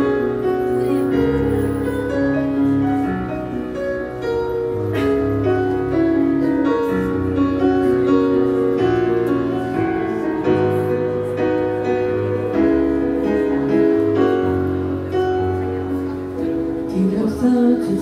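Piano-led instrumental passage of a pop song, sustained keyboard chords over bass notes that change every second or so, with no singing.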